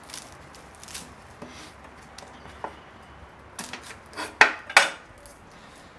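Knife cutting a garlic bulb on a wooden cutting board: light clicks and scrapes, then a cluster of sharp knocks of the blade against the board a little after three and a half seconds in, the loudest two about half a second apart.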